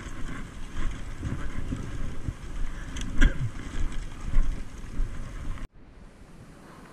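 Wind buffeting the microphone: an uneven low rumble with a few knocks, cutting off abruptly shortly before the end.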